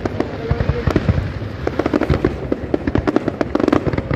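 Fireworks display: aerial shells bursting in a rapid, continuous string of bangs and crackles.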